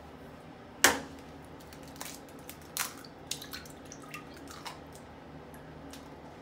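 A raw egg dropping into toilet bowl water with one loud splash about a second in, followed by a few small scattered drips and plops.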